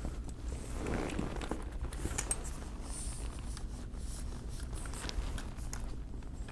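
Light clicks and rustles of a camera being lowered and repositioned on its mount, over a steady low room hum.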